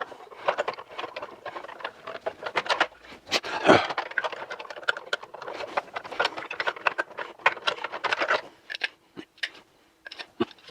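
Hard plastic parts of a Kreepy Krauly Racer pool cleaner clicking and rattling in the hands as the toothed axle is pushed back through its small plastic wheel. A dense run of clicks with one louder knock a few seconds in, thinning to scattered clicks near the end.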